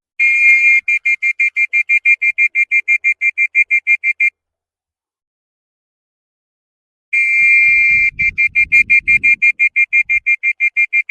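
A high-pitched whistle sounds twice. Each time it gives a short steady note and then a fast run of short toots, about five or six a second, lasting about four seconds, with a few seconds of silence between the two runs.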